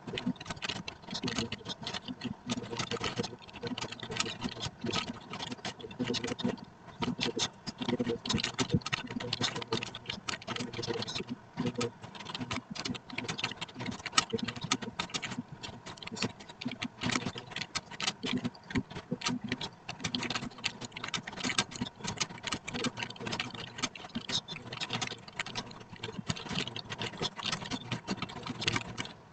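Computer keyboard typed on rapidly and continuously: a fast, uneven stream of key clicks, with a few brief pauses.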